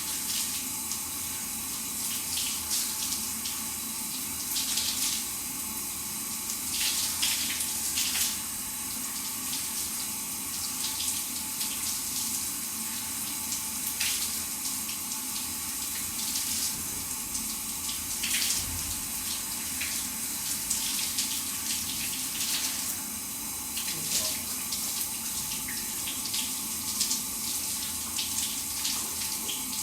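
Shower running: a steady hiss of water spray with frequent small splashes.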